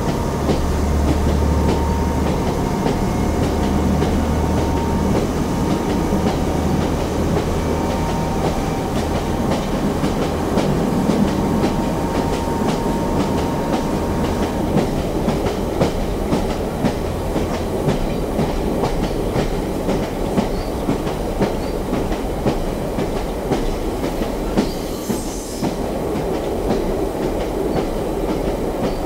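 Inside a BR Class 142 Pacer railbus, its original Leyland TL11 diesel engine pulls under power, with the wheels clicking over the rail joints of jointed track. The engine's deep note fades about halfway through, leaving mainly the clickety-clack of the joints and the running noise.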